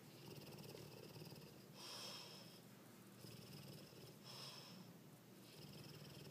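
Dogue de Bordeaux asleep and dreaming, breathing noisily through its nose: about five soft, snore-like breaths in a row, each with a faint high whistle.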